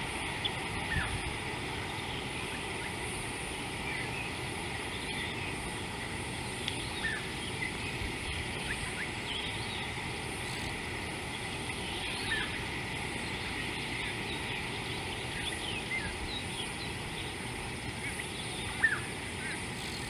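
Outdoor ambience of birds giving short, scattered chirps over a steady hiss, with one sharp knock near the end.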